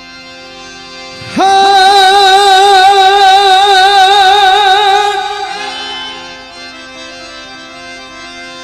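Gujarati devotional bhajan: about a second in, a singer scoops up into one long held note with vibrato, sustained for about four seconds before fading back under the accompaniment of steady held instrumental notes.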